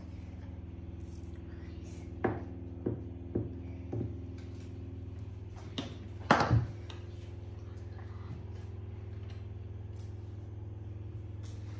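A few short clicks and knocks of a plastic glue stick and its cap being handled and set down on a hard glossy tabletop, the loudest cluster about six seconds in, over a steady low hum.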